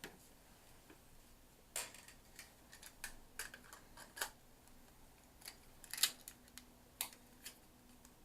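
Light plastic clicks and short rustles of small camera accessories and their plastic case and packaging being handled, irregularly spaced, the sharpest about four and six seconds in.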